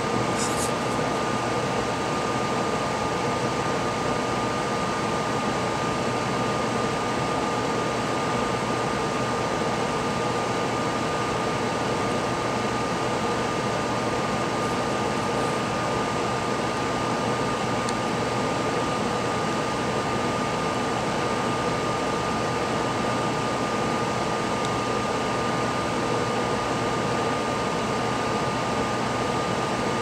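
A small fan or blower running steadily, an even whirring hiss with a faint high whine held at one pitch.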